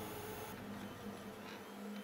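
Robox desktop 3D printer running faintly, its stepper motors whirring as the print head moves, with a faint rising whine about one and a half seconds in.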